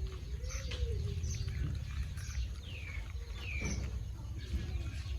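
Birds calling: a low, cooing call near the start, then two sharp falling chirps about two and three and a half seconds in, over a steady low rumble.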